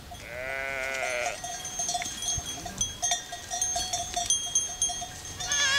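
Goat kids bleating: one long call near the start that rises and falls, then a shorter wavering bleat at the end, with a light ringing sound in between.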